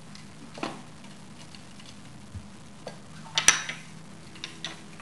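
Plastic LEGO pieces clicking and clattering as they are handled: half a dozen scattered clicks, the loudest a quick double click about three and a half seconds in.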